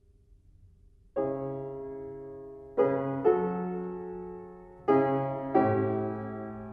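Background music: slow piano chords, each struck and left to ring and fade, beginning about a second in.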